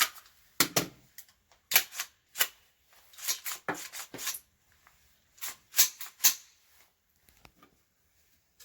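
AR-15 rifle's action being worked by hand to clear a double feed: an irregular run of sharp metallic clacks and clicks over about seven seconds, then quiet.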